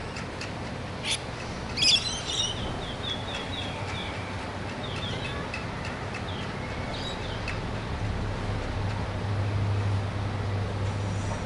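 Rainbow lorikeets chirping: a quick run of short, high chirps about two seconds in, then a few scattered calls, over steady outdoor background noise. A low steady hum comes in during the second half.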